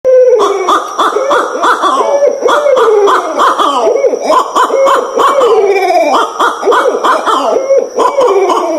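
Several barred owls caterwauling together: loud, overlapping hooting and wailing calls that swoop up and down in pitch. They start abruptly out of silence.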